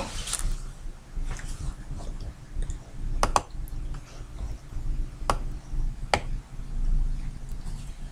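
Computer mouse clicking: a few sharp, separate clicks, two close together about three seconds in and two more later, over low room noise.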